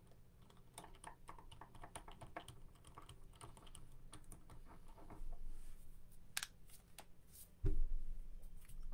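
Rapid light clicks and taps from hands handling small objects close to the microphone, then a single dull thump near the end, the loudest sound.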